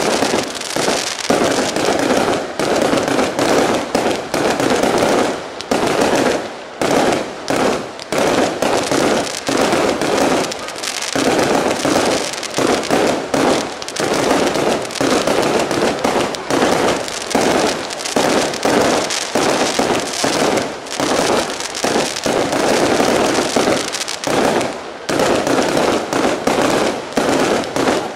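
Aerial fireworks display: a dense, almost continuous barrage of shell bursts and bangs, several a second, with crackling between them.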